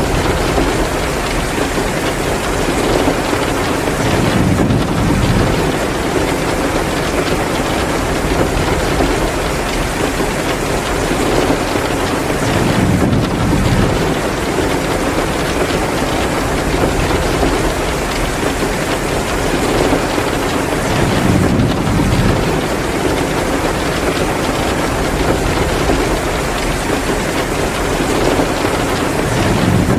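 Heavy, steady rain with a crackling fireplace fire mixed in, a continuous dense hiss. A deeper whoosh swells and fades about every eight or nine seconds.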